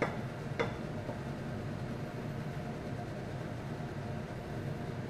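A metal wok knocking twice against a ceramic bowl as stir-fry is tipped into it, both clinks within the first second, over a steady low hum.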